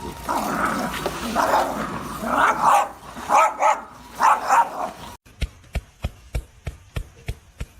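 A dog barking about five times in drawn-out barks, roughly one a second. After a cut at about five seconds in, a run of sharp, short clicks or taps, two to three a second.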